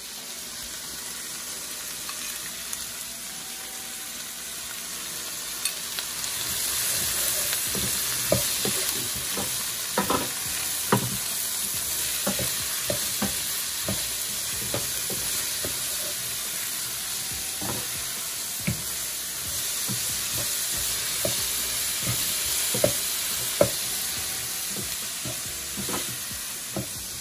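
Onions, peppers and tomatoes with garlic and thyme frying in a pot, a steady sizzle that grows louder about six seconds in. A utensil stirring them knocks and scrapes against the pot now and then.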